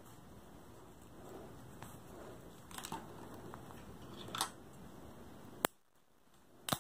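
Faint rustling and soft ticks of hands handling crochet work and a sewing needle and thread. A sharp click comes about two-thirds of the way in, after which the sound drops almost to silence, and a second sharp click comes near the end.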